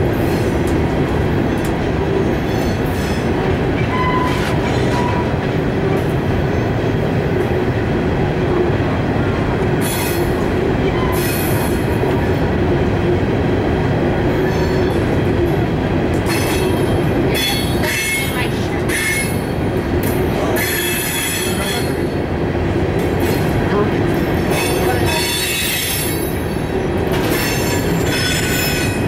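Union Pacific freight train of empty rock gondola cars passing, with the diesel locomotives running and the cars rumbling over the rails. Wheel flanges squeal in repeated high-pitched bursts on the curving track, starting about a third of the way in and coming most often in the last half.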